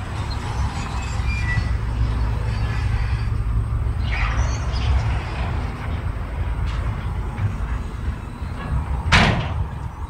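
Heavy earthmoving machinery running with a steady low diesel rumble. There is a brief metallic squeal about four seconds in and one sharp, loud clank just after nine seconds.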